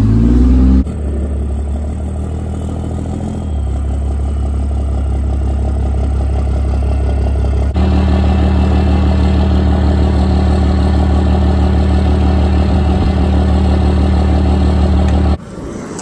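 Dodge Ram pickup's 12-valve Cummins diesel engine running, with a short rise in pitch at the start, then running steadily with a deep, even hum. It cuts off suddenly near the end.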